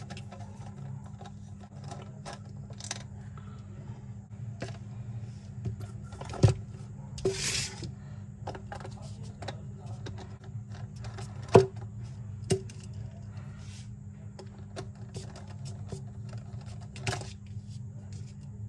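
A 7 mm nut driver and metal parts clicking and knocking while the wheel nuts are loosened on an RC car. There are sharp clacks about six and a half seconds in and twice near twelve seconds, and a brief scraping rattle around seven and a half seconds. A steady low hum runs underneath.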